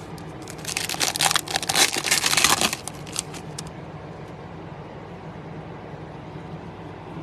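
Foil wrapper of a Topps Chrome baseball card pack crinkling and tearing as it is ripped open: a rapid run of crackles lasting about two seconds, a few stragglers after, then only a faint steady hum.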